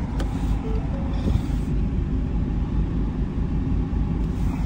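Ford Focus engine idling, a steady low rumble heard from inside the cabin, with a few faint clicks over it.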